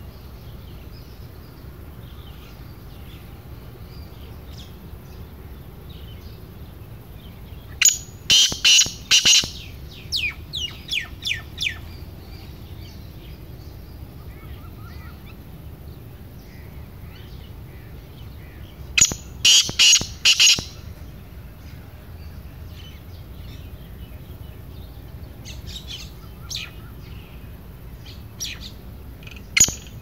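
A male black francolin calls twice from its cage, about 8 and 19 seconds in, each time a rapid burst of loud notes lasting about a second and a half, and starts another call at the very end. Fainter chirps are heard in between.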